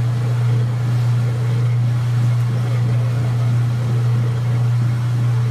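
Whirlpool direct-drive top-load washing machine running in its spin cycle: a steady, unbroken low motor hum with a noisy wash of machine sound over it.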